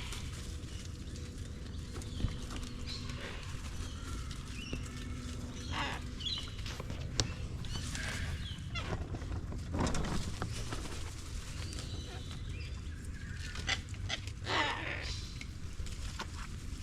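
Animal calls: a few short cries, scattered through, over a steady low background noise.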